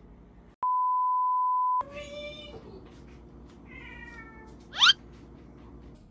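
A steady one-kilohertz bleep tone lasts about a second, then a cat meows twice, each call falling in pitch. Near the end comes a very short, loud whistle that rises sharply in pitch.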